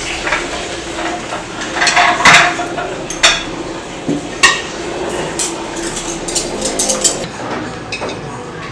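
Dishes and cutlery being handled: a string of sharp clinks and clatters, the loudest about two seconds in, over a steady low hum.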